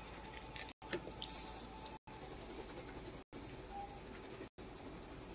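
Coloured pencil rubbing on paper while shading: faint, soft scratching.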